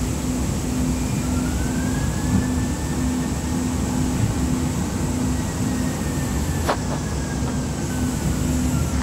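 Interior ride noise of a Siemens S200 light rail vehicle running along the track: a steady low rumble with a pulsing hum. A faint whine rises and then slowly falls, and there is a single sharp click about two-thirds of the way in.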